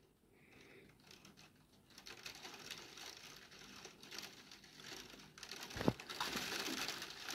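Heavy rain pattering faintly, with scattered drops striking a wet window ledge. The drops come denser about five and a half seconds in, with a single knock about six seconds in.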